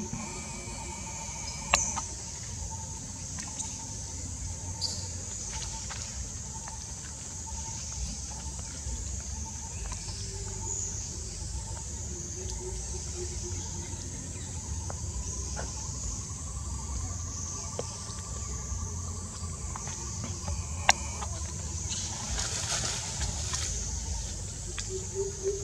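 Outdoor tree-canopy ambience: a steady high-pitched drone over a low rumble, broken by two sharp clicks, one about two seconds in and one near the end.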